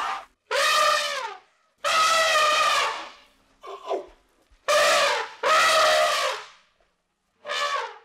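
Elephant trumpeting: a series of loud, brassy calls, several lasting about a second, each dropping in pitch at its end, with short gaps between.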